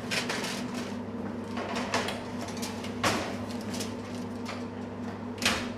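Vulcan convection oven being loaded: the door handled and a foil-covered roasting pan set inside, giving several knocks and clanks, the loudest about three seconds in and near the end, over a steady low hum.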